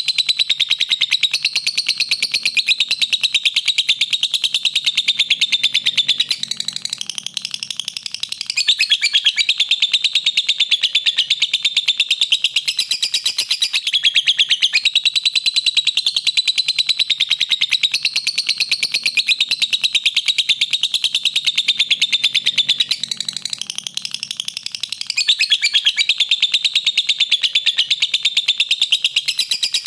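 Lovebird chattering in a long, fast, high-pitched trill with no pauses, easing off briefly twice.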